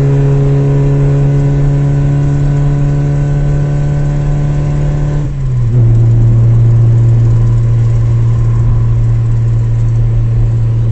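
Car engine running at a steady speed while driving, with a strong, even hum. About halfway through, its note drops suddenly to a lower pitch and then holds steady again.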